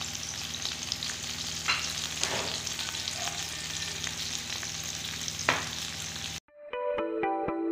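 Minced-meat kebab patties shallow-frying in hot oil, a steady sizzle with a few sharp pops. The sizzle cuts off about six seconds in, and plucked guitar music starts.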